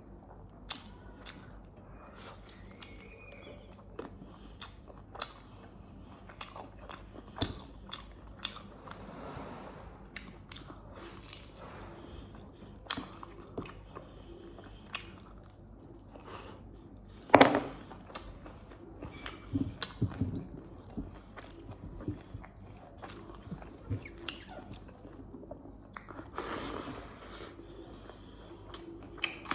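Close-miked chewing and biting of pork and rice: many small wet mouth clicks and smacks, with one much louder sharp knock a little past the middle.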